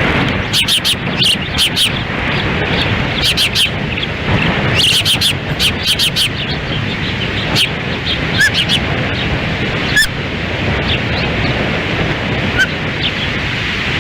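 Ospreys at the nest giving quick series of short, high chirps, in several bursts, over steady wind buffeting the microphone.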